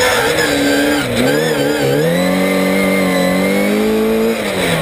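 Classic Mini's 1380 cc A-series four-cylinder engine pulling hard on a hillclimb run. The revs dip and waver about a second in, climb steadily for about two seconds, then drop sharply near the end.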